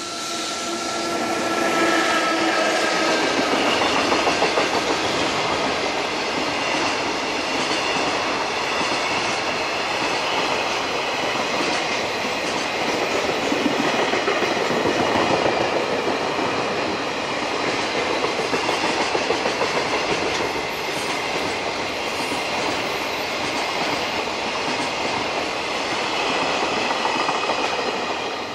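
A long container freight train passing close by at speed, its wheels clattering rhythmically over the rail joints as wagon after wagon goes by. A steady whine runs through the first few seconds.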